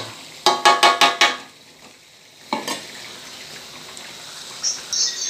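Metal spatula striking and scraping an aluminium wok a few times in quick succession, each hit ringing. After a single further knock the chicken pieces in kecap sauce sizzle steadily in the pan.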